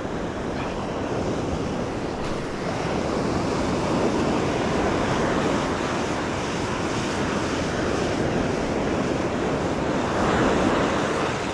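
Ocean surf breaking on a sandy beach, with wind buffeting the microphone; the wash swells louder as waves break, most strongly near the end.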